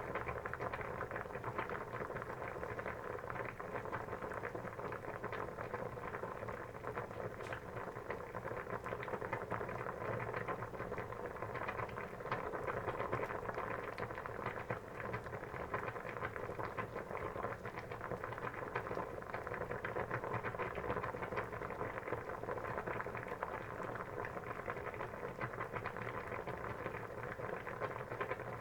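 Water boiling: a steady, dense bubbling made of many small pops, even in level throughout.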